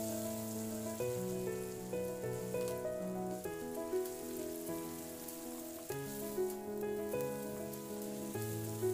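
Shrimp, onion and garlic sizzling in oil in a wok as they are stirred with a wooden spatula, over background instrumental music of steady, changing notes.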